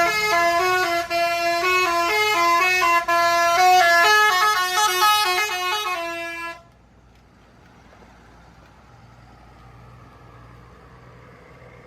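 Bus telolet horn, a multi-tone musical horn, playing a quick melody of stepping notes that cuts off about six and a half seconds in. A low vehicle engine rumble remains after it.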